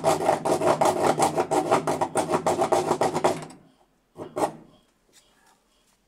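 Rapid back-and-forth strokes of a hand tool sawing a small notch into a washing machine's plastic cabinet, at about six strokes a second. The strokes stop a little past halfway, and one more short stroke follows.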